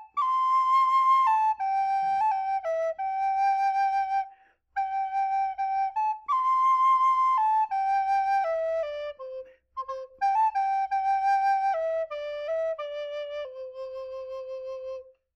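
A small wooden end-blown flute playing a slow melody of held notes in three phrases, with short breaks between them; the last phrase steps downward and ends on a long low note.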